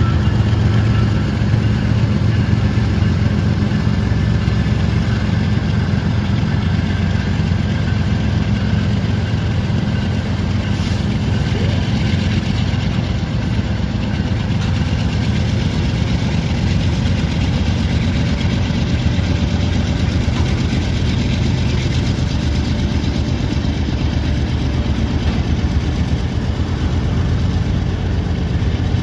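Two BNSF diesel-electric freight locomotives pulling a local freight train: a steady low engine rumble as the train moves off, with the cars rolling along behind.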